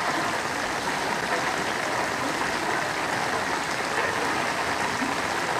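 Steady rushing and sloshing of shallow floodwater filling a lane, stirred by people wading through it.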